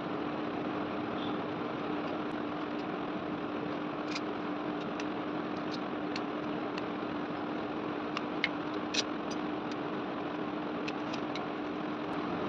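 Electric fan running steadily: an even rush of air over a constant motor hum, with a few light ticks and two small clicks a little past two-thirds of the way through.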